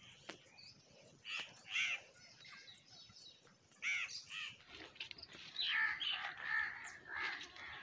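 Birds calling outdoors: short runs of pitched calls about a second in, around four seconds in, and again from about five and a half to seven and a half seconds.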